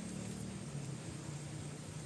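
A motor humming steadily at a low pitch, over a faint background hiss.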